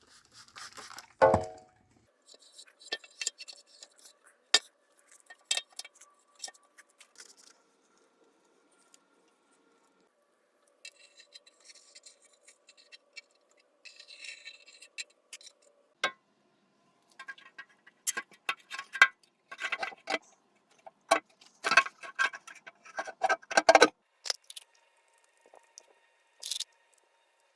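Hand work on the oil-pan mating surface under the engine: scattered clicks, rustling and light scraping of a rag and tools, sparse at first and then busier and louder through the second half.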